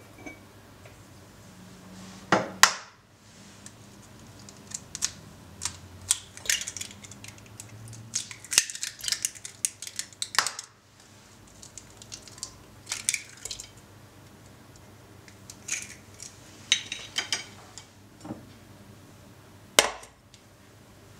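Raw eggs being cracked and their shells broken over a glass measuring jug: scattered sharp taps, shell crackles and light clinks of glass. A loud knock comes near the start, and another just before the end as a glass bowl is set down on a kitchen scale.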